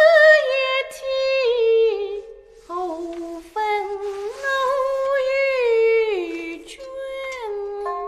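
A woman's voice singing a slow, mournful melody in long held notes that slide between pitches, the Chinese lyrics '夫妻原一体，何分奴与君'.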